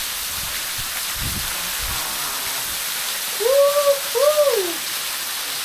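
A steady rushing hiss, with two short rising-and-falling vocal exclamations from a person about three and a half and four and a quarter seconds in.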